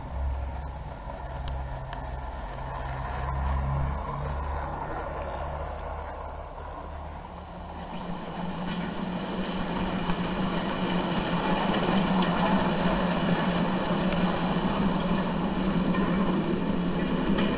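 Model railway train running on garden track: the locomotive's electric motor hums along with the rumble of its wheels on the rails, getting louder from about eight seconds in.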